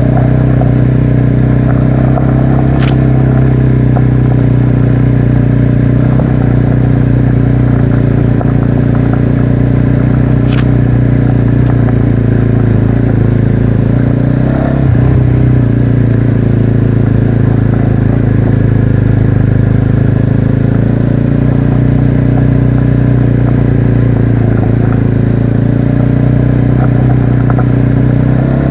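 292 cc motorcycle engine running at steady revs under way, picked up close by a cheap clip-on microphone. About halfway through the revs dip briefly, and two sharp clicks come in the first third.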